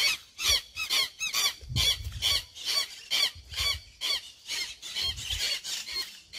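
Rapid, repeated high squeaks, several a second, over dull thuds of footsteps squelching through wet, sticky mud.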